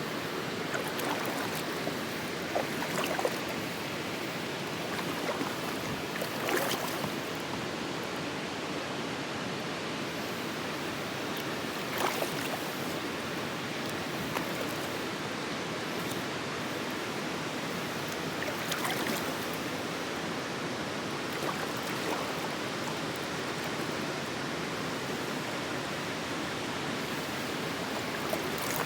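Steady rush of a large waterfall, Granite Falls, pouring into the sea, with a few brief sharp splashes standing out now and then.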